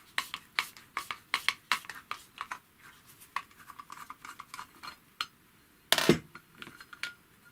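Small metal parts of a hand-crank sewing machine's drive clicking and clinking as the drive is taken apart. There is a quick run of light ticks in the middle and one louder clatter about six seconds in.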